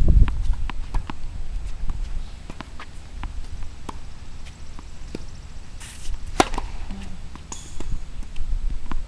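Tennis ball bounced lightly a few times, then one sharp crack of a racket hitting the ball on a serve about six seconds in, over a steady low rumble.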